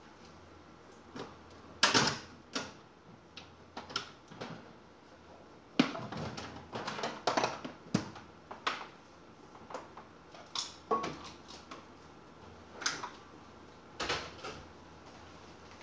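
Kitchen clatter of dishes and utensils being handled at the counter: irregular knocks and clinks, one of them ringing briefly.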